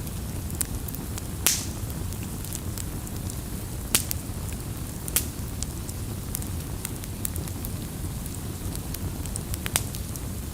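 Campfire burning: wood crackling with scattered sharp pops over a steady low rumble of flames, the strongest pops about a second and a half, four, five and nearly ten seconds in.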